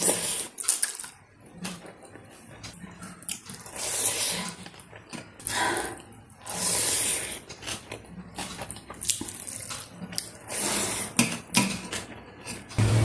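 Close-up wet eating sounds from a meal of rice, dal and greens: chewing and smacking, with short hissy slurps every second or two and small clicks in between.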